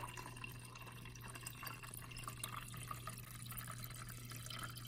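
Water running from a refrigerator door dispenser into a plastic water bottle, faint, with a steady low hum underneath.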